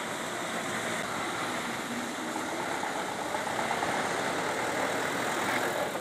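Street traffic noise: cars and minibuses idling and running in slow traffic at a junction, a steady wash of engine noise.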